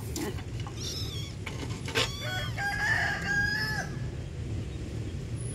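A rooster crowing once, a drawn-out call lasting about three seconds, over a low steady rumble.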